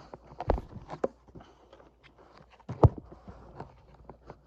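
Hard plastic prop parts being handled and pushed into slots in a base: a scatter of light clicks and rattles, with two louder knocks about half a second in and near three seconds.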